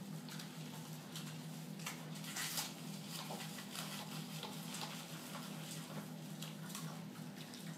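Hands lathering a wet Yorkshire terrier's soapy coat: irregular wet squishing and crackling of foam and fur, over a steady low hum.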